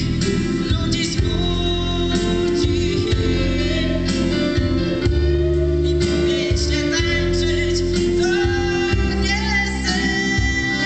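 A live pop band performing a song: a lead singer at the microphone over keyboards, drums and electric guitar, with one long held note near the middle.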